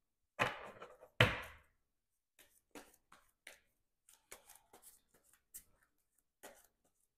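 A deck of sleeved card-game cards being shuffled by hand: two louder riffling sweeps about half a second and a second in, then a string of quieter short shuffling rustles and clicks.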